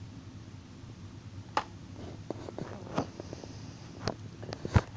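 Handling noise from a plastic toy RC car transmitter: about five sharp clicks and knocks, the loudest one just before the end.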